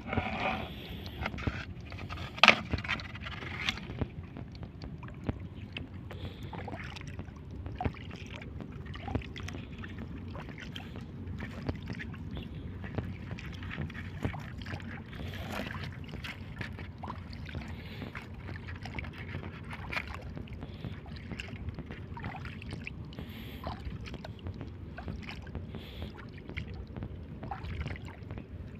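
Steady low rumble of shallow water and wind at the shoreline, with scattered small knocks and sloshes and one sharp knock about two and a half seconds in.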